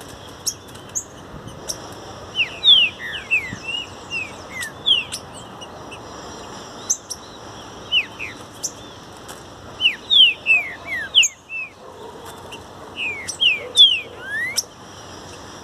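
Green-winged saltator (trinca-ferro) singing three phrases of quick, downward-sliding whistled notes, with a steady high-pitched drone behind.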